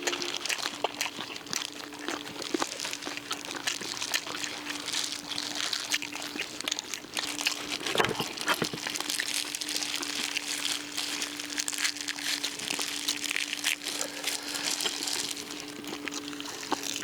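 Eating crisp-skinned, oak-wood-grilled duck: a dense run of small crackles and rustles from the skin being torn and chewed, over a faint steady hum.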